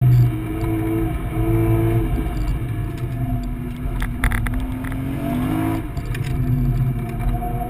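BMW E46 M3's S54 straight-six engine breathing through a CSL carbon airbox, heard from inside the cabin while lapping a circuit, muffled by a sealed GoPro waterproof housing. The engine note drops in pitch about three seconds in, holds lower, then climbs again near the end.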